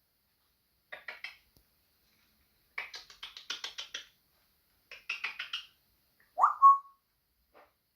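African grey parrot making rapid clicking rattles in three bursts, then one loud whistle that sweeps upward and holds its note, near the end.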